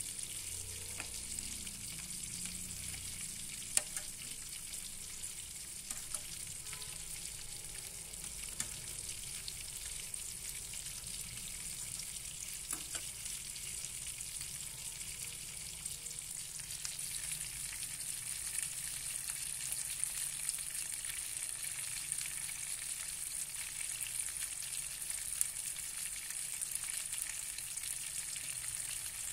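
Salted fish frying in hot oil in a pan: a steady sizzle with scattered small crackles and pops, growing a little louder in the second half.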